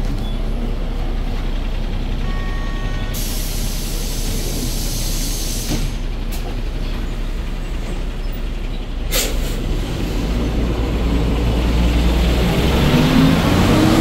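Hyundai Green City CNG city bus, with its C6GA six-cylinder engine, running at a stop. Compressed air hisses for a few seconds, then a short sharp air burst comes about nine seconds in. Near the end the engine note rises and grows louder as the bus pulls away.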